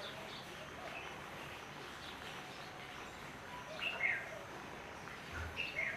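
Wild birds chirping in short calls over a steady background hiss, with a sharper pair of chirps about four seconds in and again near the end.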